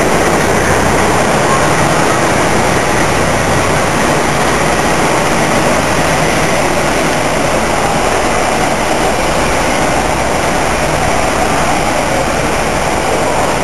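Class 52 'Western' diesel-hydraulic locomotive D1010, with twin Maybach engines, running loud and steady as it moves away, fading slightly.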